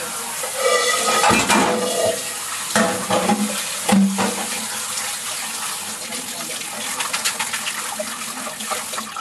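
Water pouring and splashing into a kitchen sink as a pot of boiled wood ear mushrooms is drained and rinsed under the running tap. A few metal knocks of the pot against the sink come in the first four seconds.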